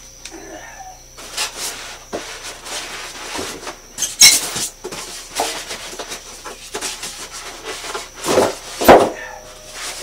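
Cardboard box and packing material rustling and scraping as parts of a concrete mixer are pulled out by hand, with a few sharp knocks, loudest about four seconds in and near the end.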